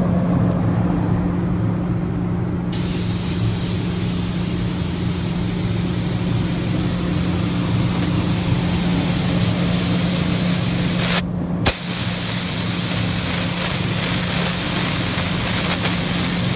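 Air-powered paint spray gun hissing as it sprays paint, starting about three seconds in and stopping briefly about two-thirds of the way through before going on again. A steady low hum runs underneath.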